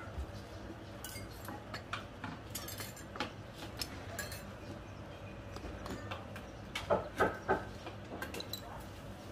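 Ceramic bowls, spoons and a metal ladle clinking and knocking as bowls of noodles are put together: scattered light clinks, with a few louder knocks about seven seconds in.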